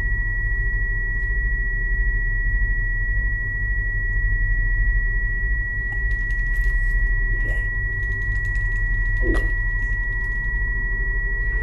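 Film sound design: a steady high-pitched ringing tone held over a deep low drone, with two faint brief sounds near the end.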